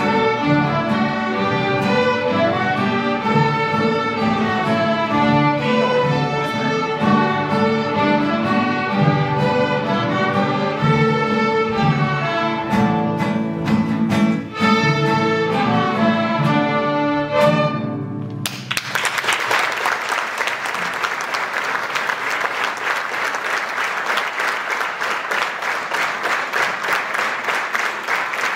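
A youth string orchestra with violins plays a light piece, which ends suddenly about two-thirds of the way through. Audience applause follows at once and continues steadily.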